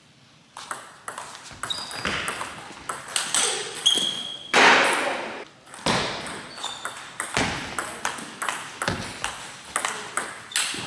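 Table tennis rally: the plastic ball clicking off the rubber bats and bouncing on the table at an uneven pace, with a louder rush of noise lasting about a second near the middle.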